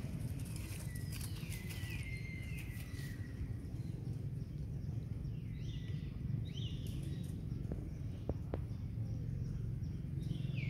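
Outdoor ambience: a steady low rumble under high chirping calls that slide down in pitch, heard about a second in, again around six seconds and at the end, with a few faint clicks around eight seconds.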